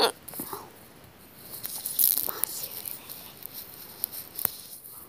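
Handling and movement noise: scattered clicks, rattles and rustles as someone walks about and moves things while searching, loudest about two seconds in, with a brief vocal sound at the very start.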